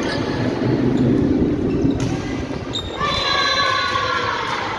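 Volleyball rally in a large echoing gym: a few sharp ball strikes over hall noise and voices. About three seconds in, a long high-pitched voice call starts and slides down in pitch.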